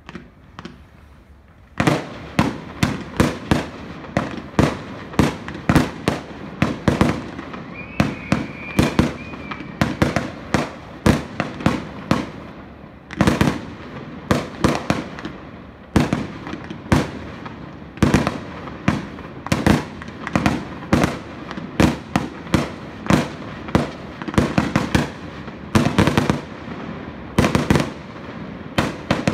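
Fireworks display: after a quiet start, a dense barrage of shell bursts and cracking bangs begins about two seconds in and keeps going at several bangs a second.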